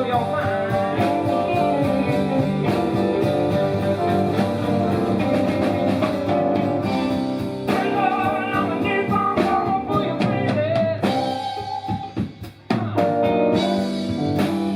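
Live blues band playing an instrumental passage, with guitar, drums and bass under a lead line that slides between notes. About twelve seconds in the band drops out briefly, then comes back in.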